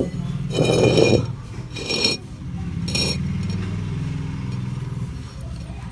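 Glass clinking and rattling: a sharp click at the start, then three short clinks in the first three seconds, over a low steady hum that fades out near the end.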